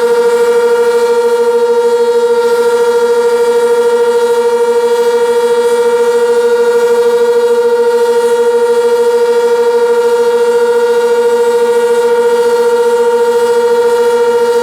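Sentry 16V1T-B outdoor warning siren sounding the steady Alert signal at full speed: one loud, unwavering tone with no rise or fall.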